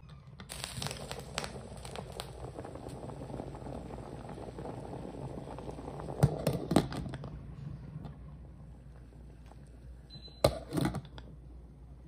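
Pot of chickpeas boiling hard under a layer of foam, a dense bubbling crackle that fades after about seven seconds. A few sharp knocks come around six seconds in and twice more near the end.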